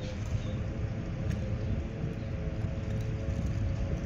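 A boat's engine running steadily, a low drone with a faint steady hum above it.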